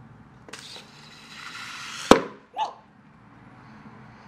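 A rubber balloon filled with shaving cream bursts with one sharp pop about two seconds in as scissors cut into it. A hiss builds for about a second before the pop, and a short, fainter sound follows half a second after it.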